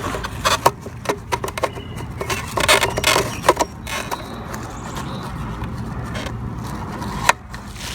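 Handling noises from working on a Jeep Cherokee's tail light assembly: a run of small clicks and knocks, with a scraping rustle about three seconds in, over a steady low background rumble.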